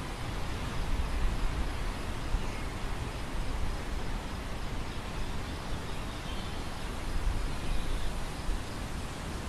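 Wind outdoors: a steady hiss with irregular, gusty low buffeting on the microphone.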